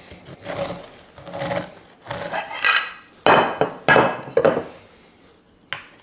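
A knife working a crusty baguette on a cutting board: a few rasping strokes, then several sharp knocks and clinks.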